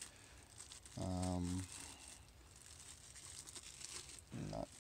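Clear plastic wrap around a power inverter crinkling faintly as it is handled, with a short hummed voice sound about a second in.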